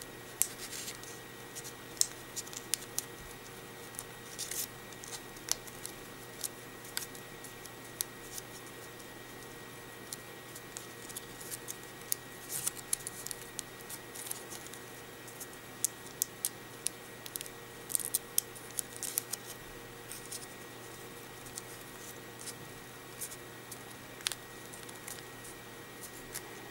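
Paper strips being folded, creased and tucked into paper pockets by hand: scattered short rustles and crinkles of paper at irregular intervals, over a faint steady hum.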